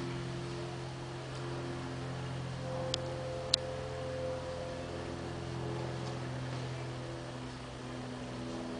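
A steady low hum with soft held tones above it that shift slowly. Two sharp clicks come about three seconds in.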